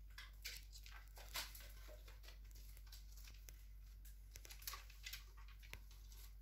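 Cuban Amazon parrot picking and clambering at a hanging woven wicker foraging ball: faint scattered crackles, clicks and rustles of dry woven willow, with a few sharper snaps about half a second in, near a second and a half, and around five seconds in.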